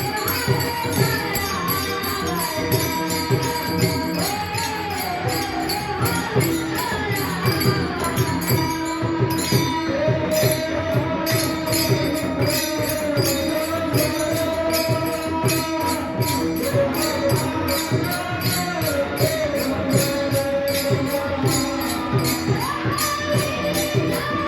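Marathi devotional kirtan music: a gliding sung melody over steady held notes, with fast, even jingling of small hand cymbals and drumbeats throughout.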